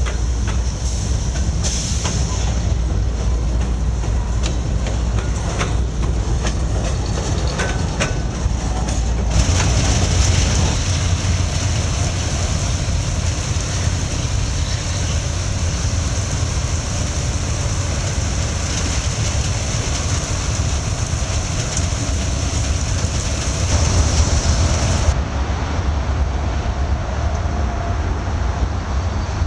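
Freight train of autorack cars rolling past, a steady rumble with wheels clicking over the rail joints. About nine seconds in the sound changes abruptly to a steadier, hissier rumble of diesel locomotives in a rail yard. Near the end it changes again to the lower rumble of Norfolk Southern diesel locomotives.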